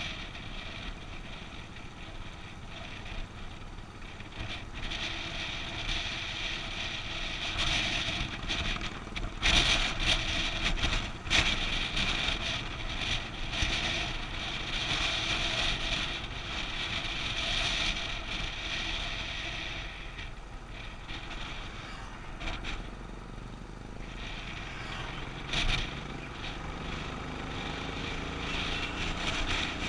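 Wind rushing over the microphone of a camera on a moving motorcycle, with the motorcycle's engine running steadily at road speed underneath. The rush swells louder in places, most of all a little under halfway through.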